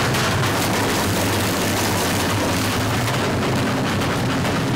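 Motor-driven sugarcane crushing mill running steadily as cane stalks are fed into its rollers: an even mechanical hum with a noisy grind over it.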